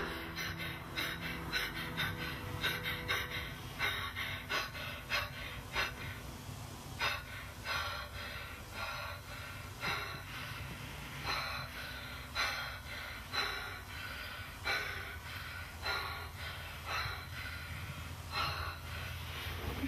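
A young woman's short, sharp, gasping breaths, fast at first and slowing to about one a second, over a low steady hum.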